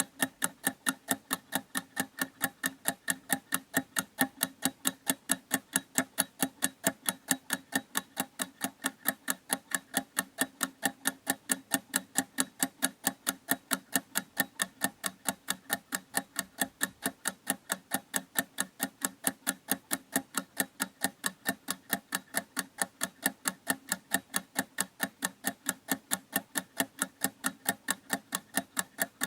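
Clock ticking steadily, quick even ticks several times a second with no break.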